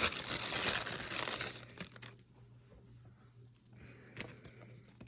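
Crinkly packaging torn and unwrapped by hand for about two seconds, then quiet handling with a couple of faint clicks.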